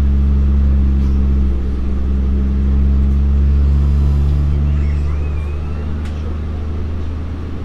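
Nippon Sharyo diesel multiple unit running along the line, heard from inside the passenger car: a steady low diesel drone over rolling noise. The engine's higher hum fades about five seconds in.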